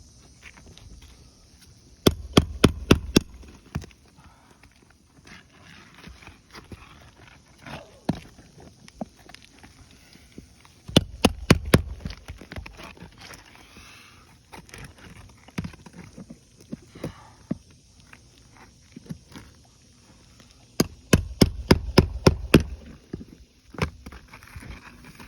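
Three bursts of rapid sharp knocks, each five or six blows in about a second, with softer scraping and clicks between: a roofing nail puller being struck to work nails loose from asphalt shingles.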